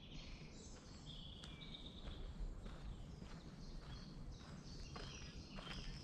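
Birds singing in woodland, short chirps and trills, over the crunch of footsteps walking on a forest path.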